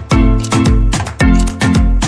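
Background music with an upbeat, steady beat: strong bass notes and regular percussion.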